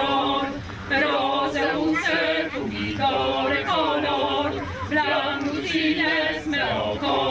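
A mixed group of men's and women's voices singing a song together in chorus, with held notes.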